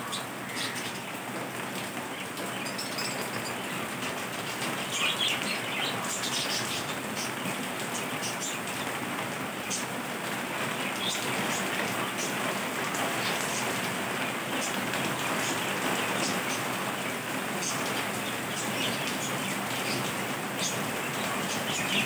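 Budgerigars giving scattered short, high chirps over a steady hiss.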